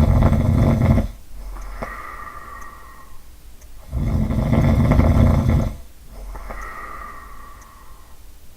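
A person snoring. One low, fluttering snore ends about a second in and another runs from about four to almost six seconds in. Between them come quieter breaths with a faint whistle.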